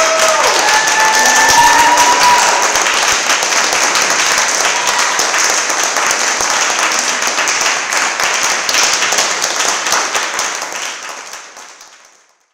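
Small audience applauding and cheering, with a few whoops in the first couple of seconds; the applause fades out near the end.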